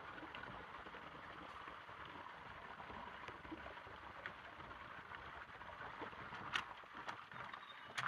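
Rainwater pouring into an open storm drain, a steady rushing and gurgling. From about six and a half seconds in, a few sharp metallic clicks come from a metal grabber tool knocking in the drain opening.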